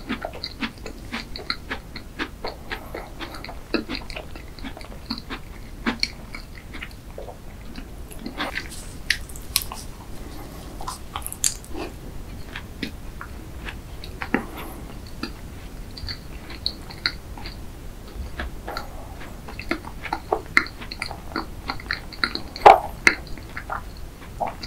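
Close-miked chewing of a strawberry macaron: soft crunches and wet mouth clicks at an uneven pace, with one sharper click near the end.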